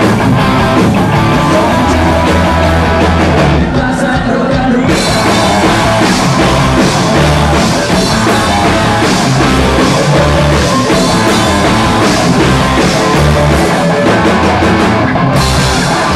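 Live rock band playing loud through a stage PA: electric guitars, bass and drum kit. The sound thins out for about a second around four seconds in, then the full band comes back in.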